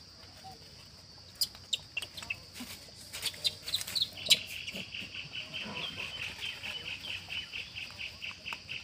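Outdoor insect chorus: a steady high drone throughout. A few sharp chirps come from about one and a half to four seconds in. From about four seconds in, a rapid pulsing chirp repeats about four times a second.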